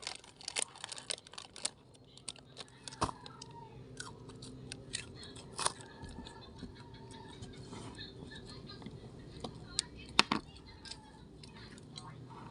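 Irregular small crunches and clicks from someone biting and chewing Pocky biscuit sticks, a few of them louder.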